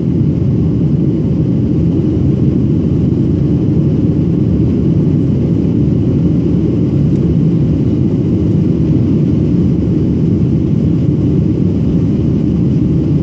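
Cabin noise of a Boeing 737-700 climbing out after takeoff: the steady low rumble of its CFM56-7B engines at climb thrust and the airflow past the fuselage, heard from a seat over the wing.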